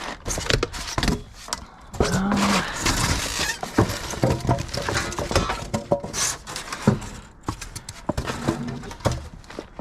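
Scrap metal and debris being rummaged through in a dumpster: irregular clanks, clinks and knocks as pieces are shifted and pulled out.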